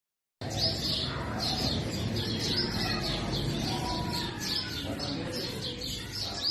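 Purple sunbird calling: a short, high, downward-curving note repeated about twice a second, with fainter birds and a low rumble beneath. It starts abruptly about half a second in.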